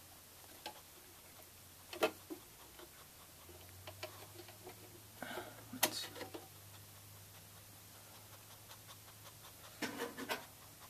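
Scattered light clicks and knocks of a PCI Express card and its metal bracket being handled and fitted into the expansion slots of a Mac Pro's metal case, the sharpest click about six seconds in and a short cluster of knocks near the end.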